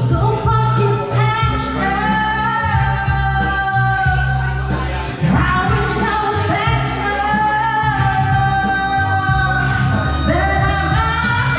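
A woman singing karaoke over a loud backing track with a heavy bass line, holding long sung notes.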